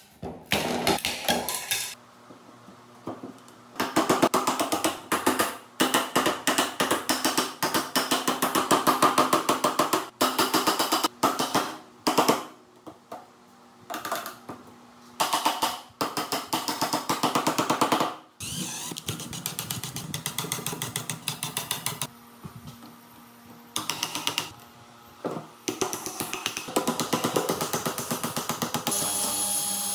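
Hammer and wooden block knocking green bamboo poles into their joints: runs of quick taps that stop and start again several times.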